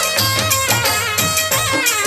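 Instrumental interlude of a Rajasthani folk devotional song (bhajan): an ornamented melody line with pitch bends over a steady percussion beat.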